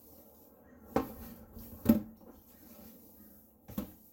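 A utensil knocking against the pot while mashed potatoes are folded: a sharp knock about a second in, a louder one a second later, and a fainter one near the end.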